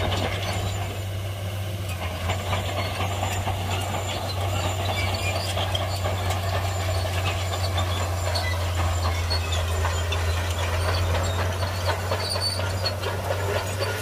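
Heavy diesel earthmoving machinery running steadily, a low engine hum under continuous metallic clatter and scattered clanks.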